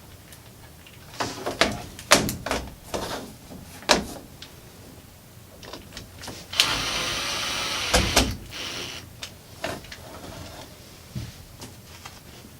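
Clicks and knocks of handling a wall-mounted sprinkler controller and its screws, with a power screwdriver running for about a second and a half in the middle as it drives a mounting screw.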